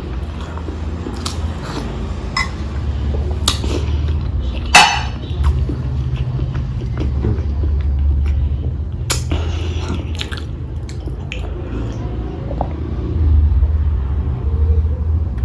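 Close-miked chewing of boiled egg with spicy tomato pickle: wet mouth smacks and clicks over a low rumble, with one sharper smack about five seconds in.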